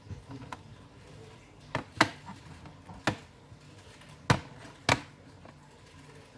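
Hands working on an Acer Aspire 3 laptop's plastic case, giving about six sharp clicks and knocks at irregular intervals. The loudest come about two seconds in and again just past four seconds.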